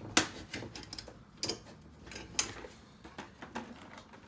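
A few scattered light clicks and knocks of metal parts and tools being handled on a workbench, the sharpest just after the start and about two and a half seconds in. No welding arc is running.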